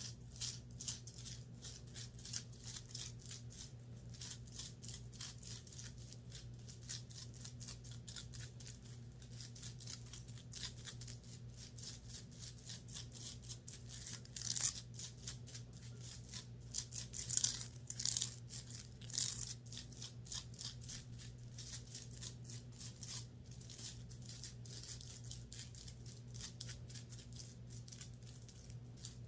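Scratching and rubbing on the fabric of a top: a fast, continuous run of short scratchy strokes, with a few louder passes midway, over a steady low hum.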